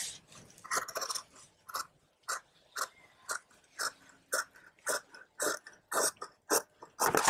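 Tailoring shears cutting through blouse fabric along a chalk line: a steady series of short snips, about two a second.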